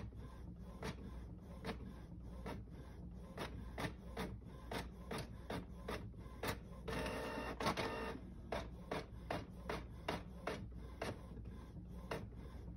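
Desktop printer printing a page: a steady train of sharp mechanical clicks, about two to three a second, with a whirring motor for about a second midway.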